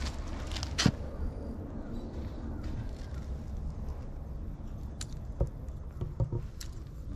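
A few scattered light clicks and knocks as a metal claw back scratcher on a pole taps the concrete and is batted and grabbed by a cat, over a steady low rumble.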